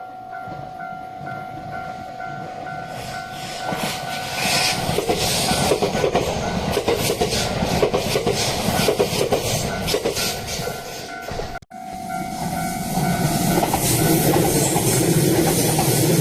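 Japanese level-crossing alarm ringing its repeated electronic bell tone while a JR West 227 series electric train passes over the crossing, with loud wheel and track noise and clattering over rail joints swelling about four seconds in. A brief break about three-quarters of the way through, after which the alarm and rising train noise resume.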